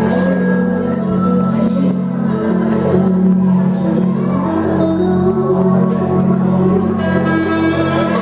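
Live band playing a song during a soundcheck: electric guitar and drum kit over sustained chords, loud and continuous.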